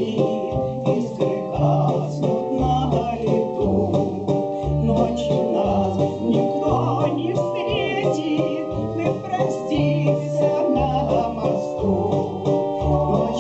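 Music: a romance played on an electronic keyboard, with sustained organ-like chords over a regular stepping bass line.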